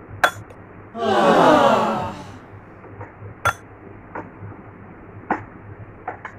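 A metal spoon clinks against a plate a few times while food is stirred and scooped. About a second in there is a loud, breathy vocal sound that falls in pitch and lasts about a second and a half.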